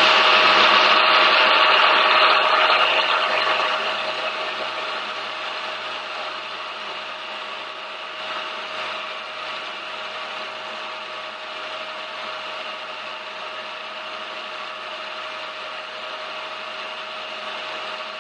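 Milling machine running a boring bar through the repaired exhaust spigot of a cast-iron Harley-Davidson Ironhead Sportster cylinder head. It makes a steady machine hum with one steady whining tone, louder for about the first three seconds and then settling lower.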